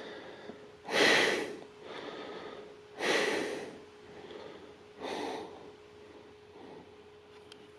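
A person breathing out heavily three times, about two seconds apart, over a faint steady hum.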